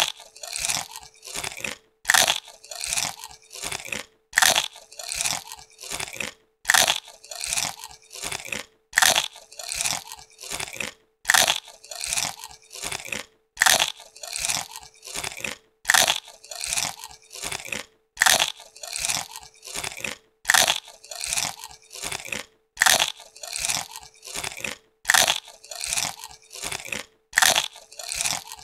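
Crisp potato chips being bitten and chewed close to the microphone. A loud crunching bite is followed by a run of softer chewing crunches, and the pattern repeats about every two seconds.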